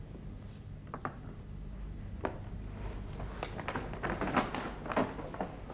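Light knocks and taps of someone rising from a chair and moving about a room, sparse at first and more frequent in the second half, over a low steady hum.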